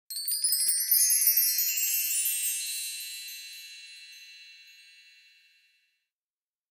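Bright chime sound effect: a quick cascade of high tinkling notes for about two seconds, then ringing on and fading away, gone by about six seconds in.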